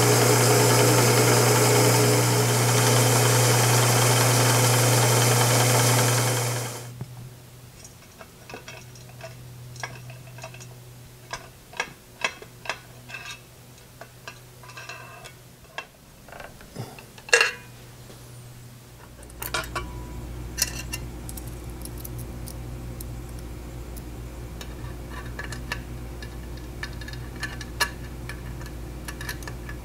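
Drill press running and drilling a hole through an aluminium angle bracket, then switched off about seven seconds in. After that come clinks and knocks of an Allen key, screws and metal parts being handled, one sharp knock near the middle, and a low steady hum that starts about twenty seconds in.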